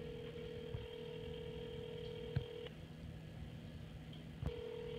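Ringing tone of an unanswered outgoing call, heard through a smartphone's speakerphone: a steady tone that stops a little over halfway through and starts again near the end.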